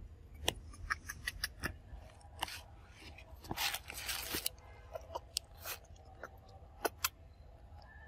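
Scattered short clicks and rustles, with a longer rustling burst about three and a half seconds in, over a steady low rumble.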